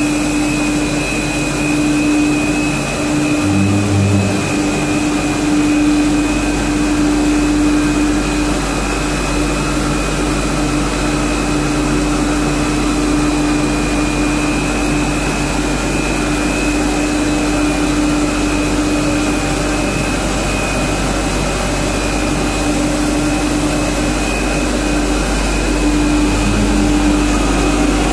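HDPE double-wall corrugated pipe extrusion line running: a steady machine drone with a constant low hum and a thin high whine over it.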